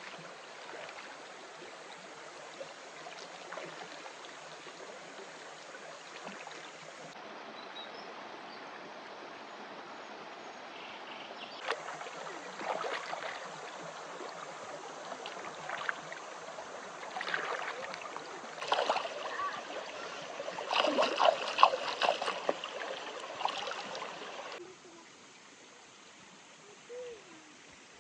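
Steady running water, with a stretch of knocking and splashing handling noises in the second half, loudest about three-quarters of the way through. Near the end it cuts to quieter outdoor ambience.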